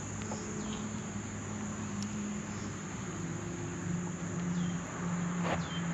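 Insects chirring steadily in a high, even drone, with a low steady hum underneath that drops slightly in pitch about three seconds in. A few faint clicks come near the end.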